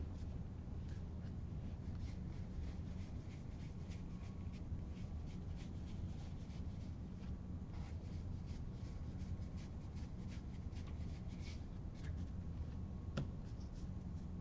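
Baseball trading cards being handled and fanned through: a run of soft, quick rustles and flicks of card stock sliding against card stock, over a steady low hum.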